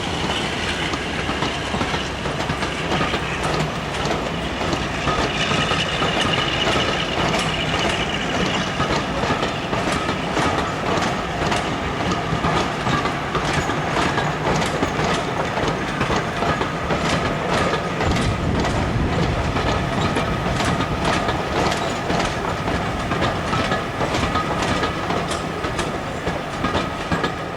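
Train running on jointed track, its wheels clicking rhythmically over the rail joints, the clicks growing quicker and denser after the first several seconds.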